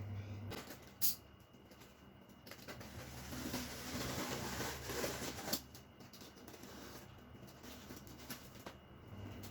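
Faint handling noise: rustling with scattered clicks and taps from about two and a half to five and a half seconds in, typical of a packaged flat-pack kitchen rack being unboxed, with a single sharper click about a second in.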